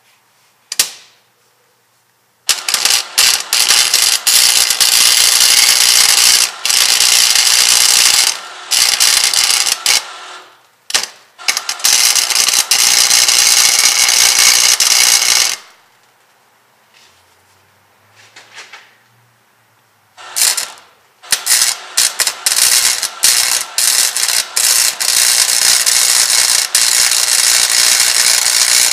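Wire-feed welder arc crackling and sputtering in several welding runs of a few seconds each, broken by short stops and one longer pause midway; the new welding wire has been catching in the feed.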